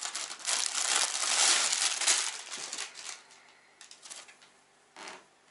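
Thin plastic clothing packaging crinkling loudly as it is handled and torn open for about two seconds, then softer intermittent rustling as the T-shirt is pulled out.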